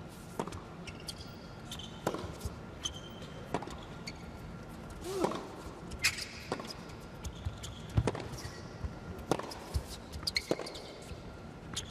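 Tennis rally on an indoor hard court: racket strikes and ball bounces ring out as sharp single hits about once a second, the loudest about eight seconds in.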